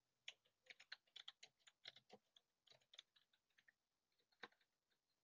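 Faint typing on a computer keyboard: quick, irregular keystrokes for about three seconds, then a few scattered presses and one last key near the end.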